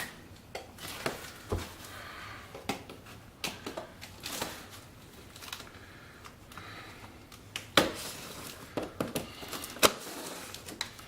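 Cardboard shipping box being opened and unpacked by hand: irregular knocks, scrapes and rustles of cardboard flaps and packing, with two sharper knocks in the last few seconds.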